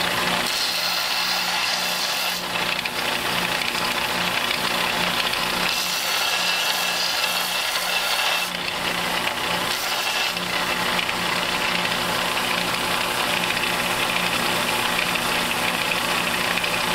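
Belt sander running steadily, with an MGB rocker arm held against the belt now and then to grind the new bushing's protruding end flush. The hiss of the sanding changes a few times as the part is pressed on and lifted off.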